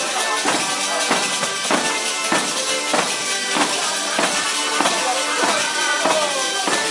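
Live Salento folk dance music (pizzica): tambourine frame drums (tamburelli) with jingles beat a steady driving rhythm, with violin and acoustic guitar playing over them.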